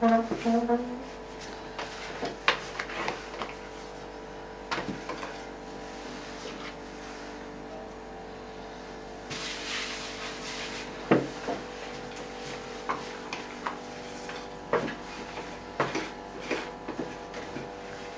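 A long thin wooden rolling pin (oklava) rolling out dough on a floured wooden table: scattered light knocks and taps as the pin rolls and is lifted and set down. There is a brief rubbing sound near the middle as a hand smooths the dough, over a steady faint background hum.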